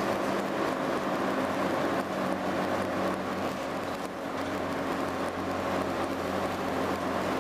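RF-class AEC Regal IV single-deck bus's underfloor diesel engine running steadily under way, heard from inside the passenger saloon, with a steady drone and whine. The low drone grows a little stronger about halfway through.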